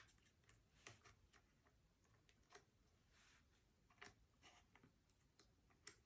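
Near silence with faint, scattered light clicks and a few soft scrapes: small metal parts and an Allen key being handled while an air rifle is taken apart.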